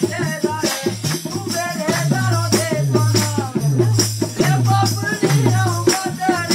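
Pahari folk music: a wavering melody line over quick, dense percussion with a shaker-like rattle and deep drum notes repeating about every 0.7 s.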